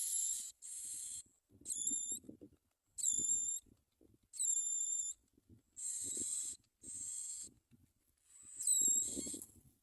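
Bar-winged prinia nestlings begging with thin, high-pitched calls, about one a second, each lasting around half a second. Some calls are raspy and hissy, others clearer and whistled. A soft rustling in the nest runs under them.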